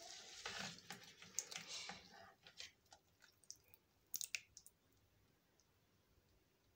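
Metal ladle scooping wet, soaked sardines out of a plastic bowl of water, with soft wet squishing and light clicks of the ladle against the bowl. The sound is busiest over the first two seconds, gives a few last clicks a little past four seconds in, and then dies down to near quiet.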